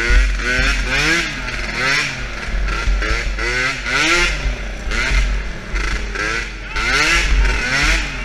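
A 50cc youth quad's engine revving up and easing off again and again as it is ridden round a dirt track, its pitch rising and falling about once a second.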